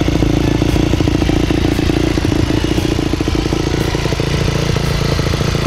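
Yamaha YZ450F's single-cylinder four-stroke engine idling steadily through a Pro Circuit Ti-4 titanium slip-on exhaust, with a rapid, even thump of firing pulses.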